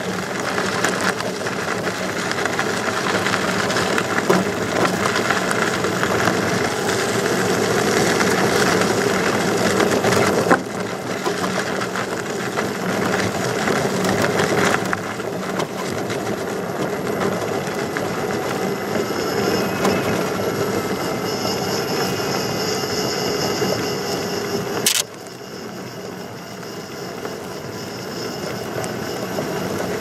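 Riding noise from an electric unicycle on a dirt trail: a steady rush of tyre on dirt and air moving past. It drops suddenly in level about ten, fifteen and twenty-five seconds in.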